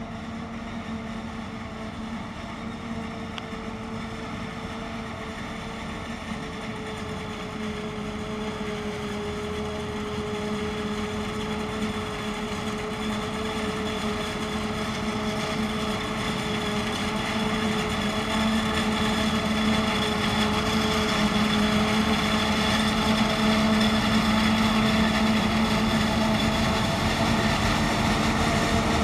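Claas Jaguar 870 forage harvester chopping maize, with a Fendt 714 tractor hauling the silage trailer alongside. A steady machine drone with a high whine over it, growing gradually louder as the machines draw closer.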